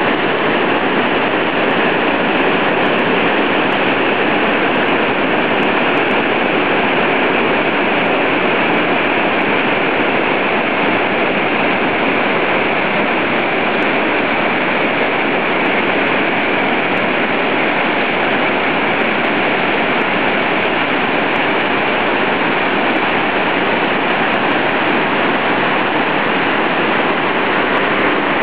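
Mountain torrent rushing, a loud, steady roar of fast white water.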